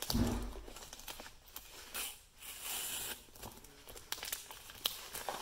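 Plastic bubble mailer crinkling and rustling as hands handle it and pull at its edge to open it, with scattered sharp crackles. A dull thump at the very start.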